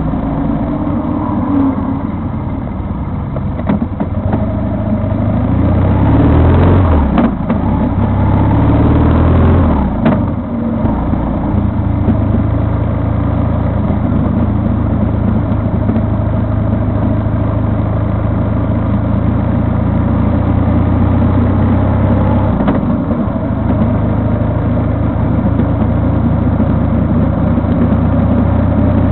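Vehicle engine running on the move, its pitch rising twice between about six and ten seconds in as it accelerates, then holding a steady drone.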